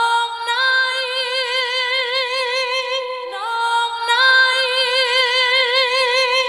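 A woman's solo singing voice with no backing music: an isolated lead vocal holding two long high notes with a steady vibrato, the second note starting a little over three seconds in.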